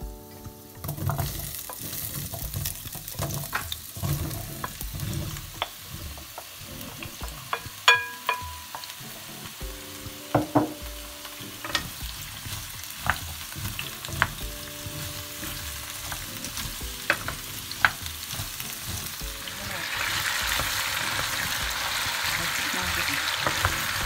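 Chopped kohlrabi, carrot and leek sizzling in hot oil in a pot while a wooden spoon stirs them, with scattered knocks and clinks against the pot. The sizzling grows louder near the end.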